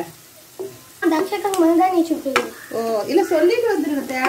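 Vegetables frying in a wok while a spatula stirs them, with a couple of sharp knocks of the spatula against the pan; a voice talks over it from about a second in.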